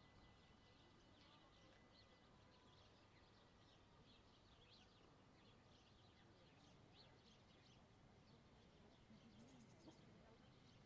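Near silence with faint, frequent chirps of small birds, scattered through the whole stretch.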